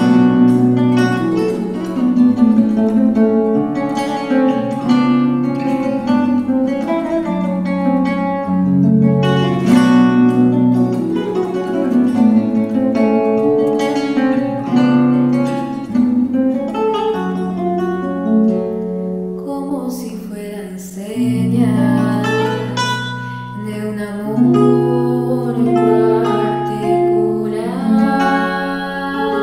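Nylon-string classical guitar playing an instrumental passage of a vals, a plucked melody over bass notes.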